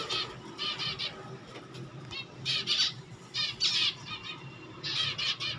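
Finches calling in about five short bursts of rapid, high chirps, with quieter gaps between them.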